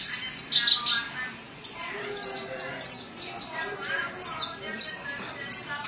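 Song of a Kolibri Ninja, a small sunbird: a steady series of high, sharply falling chirps, about one to two a second, with softer, lower twittering notes in between.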